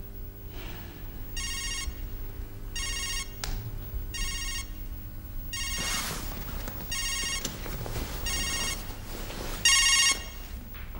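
Mobile phone ringing: a short trilling electronic ringtone repeated seven times, about every second and a half, the last ring louder than the rest.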